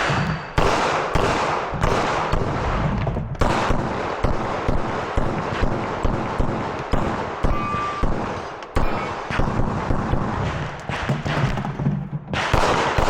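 A rapid string of pistol shots on a firing range: many sharp cracks, unevenly spaced and often less than half a second apart, with a short lull near the end.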